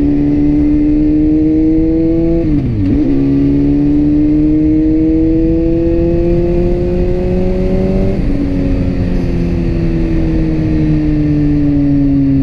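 BMW S1000RR's inline-four engine under way, heard from the rider's seat. About two and a half seconds in the revs dip sharply and come back lower, as in an upshift, then climb slowly under light throttle. After about eight seconds they ease off and fall gradually as the bike rolls off the throttle.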